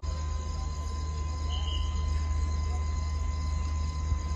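Crickets chirping in an even, pulsing rhythm over a low steady rumble, with a faint steady tone underneath.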